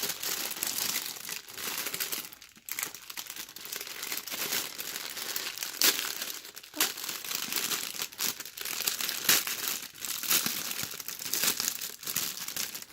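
Plastic packaging crinkling continuously as it is handled, with many sharp irregular crackles.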